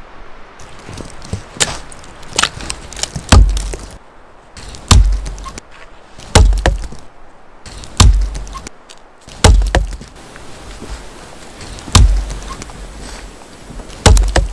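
Axe chopping into the base of a slender tree trunk: about seven heavy blows, one every second and a half to two seconds, with lighter knocks and rustling between.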